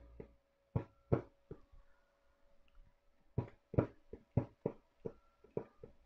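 Cutting plotter tool head being jogged in small steps to line up on a registration mark: about a dozen short clicks at uneven intervals, a few with a brief whine after them, over a faint steady hum.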